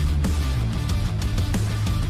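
Wrestling entrance theme music: heavy rock with electric guitar held on low notes over drum hits.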